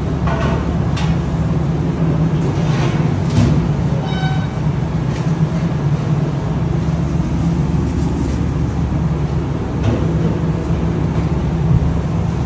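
Steady low hum of commercial kitchen machinery such as refrigeration or ventilation. Light rustles of toppings are heard in the first few seconds, and a short electronic beep sounds about four seconds in.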